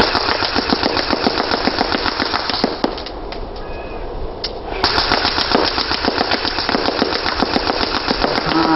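Airsoft gun firing full-auto at close range, a rapid stream of shots with the BBs cracking against their target. It fires in two long bursts with a pause of about two seconds between them, a few seconds in.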